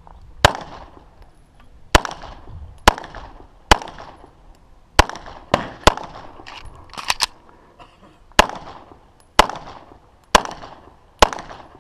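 A string of about a dozen 9mm pistol shots from an EAA/Tanfoglio Witness Elite Limited Pro, mostly a second or less apart, with a quick burst of two or three together about seven seconds in. Each sharp crack trails off in a short echo.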